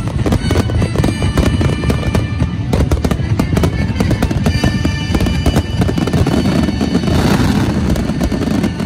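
Fireworks shells bursting in quick succession with dense booms and crackle, a spell of hissing crackle about seven seconds in, and music playing alongside.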